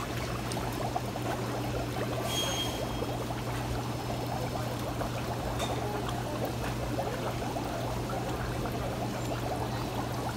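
Fish market ambience: a steady low hum under a continuous splashing, pouring noise like running water.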